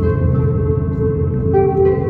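Ambient show music: held droning tones over a low rumble, with new sustained notes coming in about one and a half seconds in.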